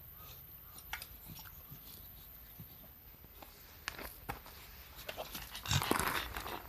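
Small clicks and taps from an elderly Shiba Inu, with a louder, brief rustling burst about six seconds in.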